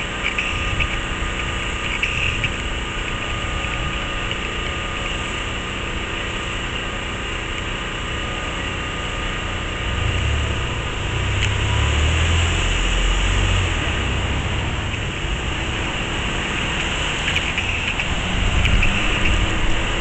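Small portable generator engine running steadily, powering the blower that keeps an inflatable up. A deeper rumble swells about ten seconds in and fades a few seconds later.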